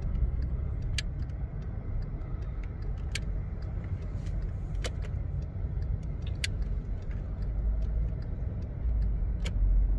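Low, steady rumble of a car driving at town speed, heard from inside the cabin, with scattered sharp clicks and small rattles at irregular moments.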